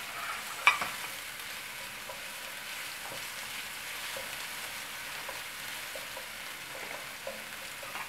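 Crushed ginger and garlic sizzling in hot oil in a frying pan, stirred with a spatula. Light taps of the spatula on the pan run over a steady hiss, with one sharp knock against the pan about a second in.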